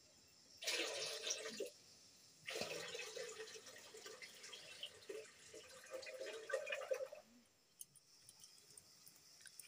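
Rice-rinsing water poured from a steel bowl into a steel bucket: a short splash about half a second in, then a longer pour of about four and a half seconds.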